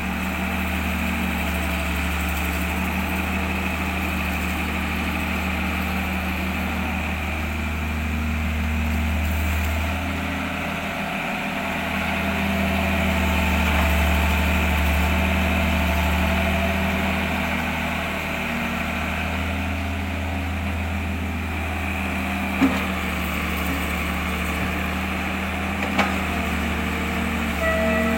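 An engine idling steadily with a low, even hum, with two sharp clicks in the last few seconds.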